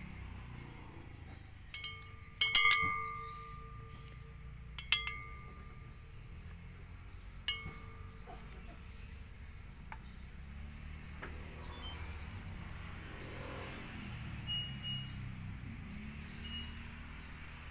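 A chime-like ringing tone sounds three times, evenly about two and a half seconds apart. Each starts with a sharp strike and rings out for about a second; the first is the loudest. A low steady hum runs underneath throughout.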